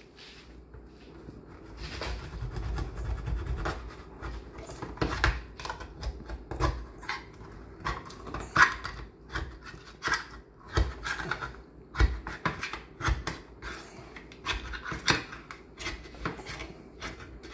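Metal spoon scraped hard and repeatedly against the rim of a tuna can's lid to cut it open, in irregular scraping strokes. There are dull knocks of the can against the countertop in the first few seconds.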